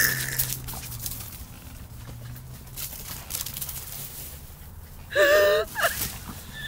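A dog gives one loud, short, high-pitched yelp with a wavering pitch about five seconds in. Before it there is a knock from the phone being handled.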